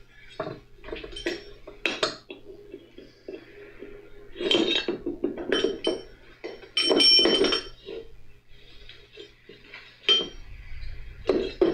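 Steel hand tools and tractor front-axle parts clinking and knocking on a metal workbench: a string of sharp metallic clanks, a few of them ringing briefly, with a longer rattle about halfway through.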